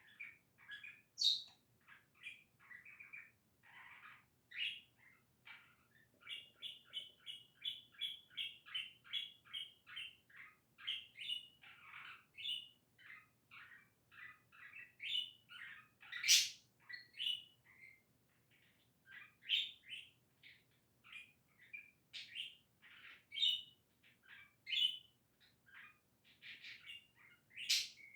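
Budgerigar warbling and chattering without a break: a steady stream of quick chirps, with a run of rapid, even notes and a few sharp, louder calls mixed in. These are the happy noises of a contented budgie.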